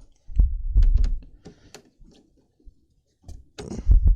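Handling noise from a Ridgid job site radio being worked on by hand: dull thuds and sharp clicks of hard plastic. There is one cluster in the first second and another near the end, with a quiet stretch between.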